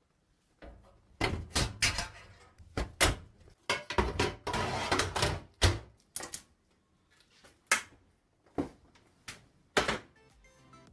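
Handling clicks and knocks as a graphics card is fitted into a PC's expansion slot, its metal bracket tapping against the steel case. A rougher rubbing scrape runs about four seconds in, among a dozen or so separate sharp clicks.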